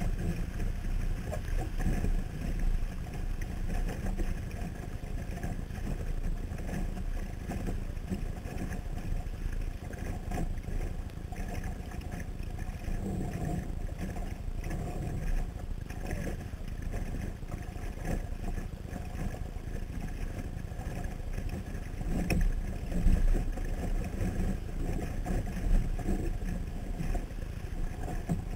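Steady wind and water noise picked up by a waterproof camera mounted on a Sunfish sailboat under sail, mostly a low rumble, swelling a few times near the end.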